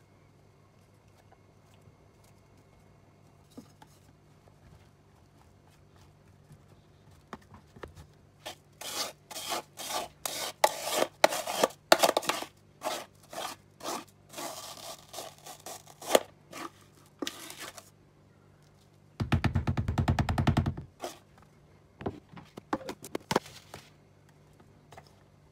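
Metal spoon scraping thick homemade soy paste off a tray in a long series of short rubbing strokes, starting about eight seconds in. Around twenty seconds in comes a brief run of fast, dense scraping, then a few more strokes.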